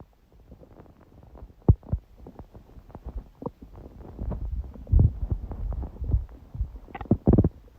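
Stomach growling: a run of short gurgles and pops, busiest and loudest from about four to seven and a half seconds in. The uploader puts it down to a large udon meal six hours earlier, her first gluten in a long while.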